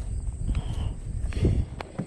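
Handling noise close to the camera mount on a kayak: irregular low knocks and rubbing with a few sharp clicks, as a small fish on the line is taken in hand.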